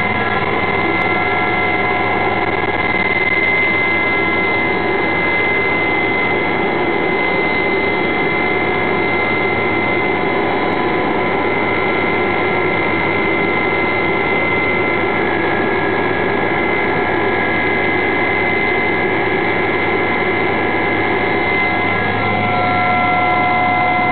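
Inside the cabin of an Aérospatiale Gazelle helicopter climbing after take-off: its Astazou turboshaft engine and transmission give a steady whine of several held high tones over a constant low drone.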